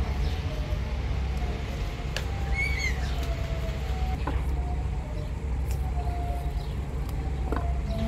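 Steady low background rumble with a faint wavering whine above it, a short chirp about two and a half seconds in, and a few light clicks.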